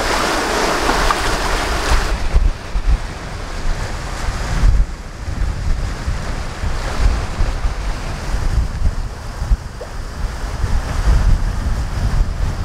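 Water rushing and splashing along a trimaran's hull as it sails fast, loud for about the first two seconds. Then wind buffets the microphone in gusts, with the wash of the sea behind it.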